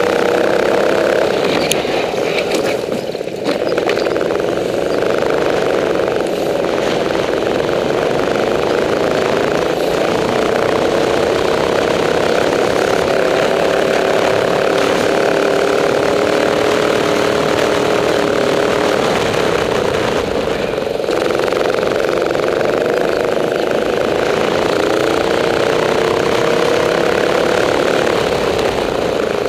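Rental go-kart engine heard on board from the driver's headcam, running hard, its pitch drifting up and down with the throttle through the corners. It drops briefly about three seconds in and again just past twenty seconds.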